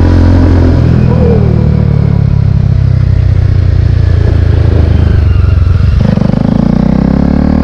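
KTM Duke 250's single-cylinder four-stroke engine running as the motorcycle is ridden, holding a steady pitch, then about six seconds in the pitch starts climbing as it accelerates.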